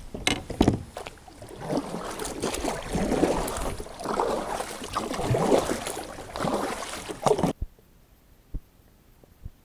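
Kayak paddle strokes in the water, a splashing wash that swells and fades about once a second, with two sharp knocks in the first second. The sound cuts off suddenly after about seven and a half seconds, leaving only two faint clicks.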